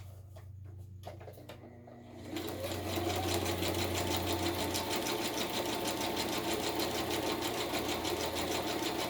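Electric sewing machine starting about two seconds in and then running steadily, stitching fast and evenly in a zigzag through a paper image on a journal page. Before it starts there is a low hum and a few light clicks.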